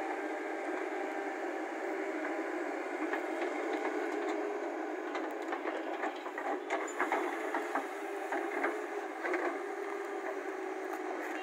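A heavy construction machine's engine running steadily with a steady whine, with a run of sharp clanks and knocks in the middle.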